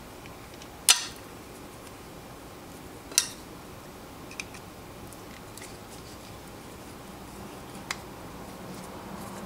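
Sharp metallic clinks of small tools and parts as a folding knife is taken apart: two loud clinks about one and three seconds in, then a few fainter ticks.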